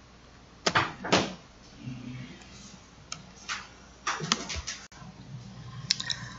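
Two sharp knocks about a second in, followed by a scattered run of lighter clicks and taps.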